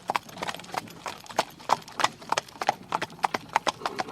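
Horses' hooves clip-clopping at a walk as they pull a carriage, sharp uneven strikes about three a second.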